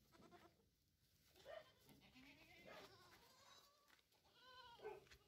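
Osmanabadi goats bleating, several calls one after another, the clearest near the end.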